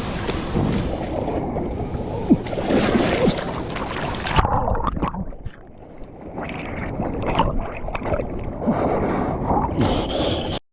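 Fast-flowing creek water rushing, with wind buffeting the microphone and scattered knocks of handling. About four seconds in the sound turns duller, dips briefly, then rises again.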